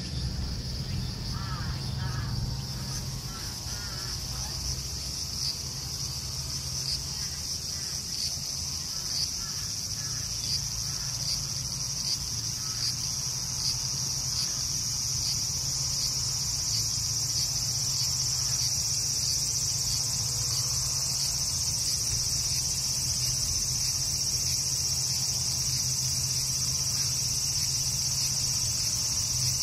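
Insects chirring in a continuous high-pitched drone that grows a little louder toward the end, over a low steady hum.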